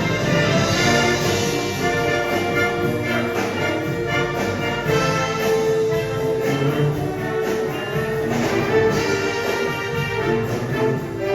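Marching showband playing live: brass carrying the melody over sustained chords and a steady drum beat, in a medley of 1970s Manila Sound pop hits.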